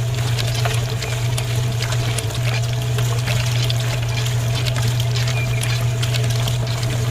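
A small electric motor hums steadily while something wet pours and trickles, with scattered small clicks.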